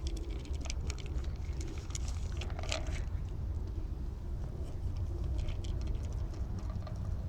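Light, irregular clicks and scratches of a small animal's feet moving on a hard surface, thickest in the first few seconds with a louder rustle near the three-second mark, over a steady low hum.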